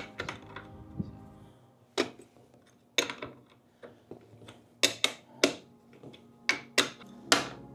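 Sharp metal knocks of a wrench tapping at the bolt of a DJI Agras T50 drone's arm joint: two single taps, then a quicker run of taps in the second half.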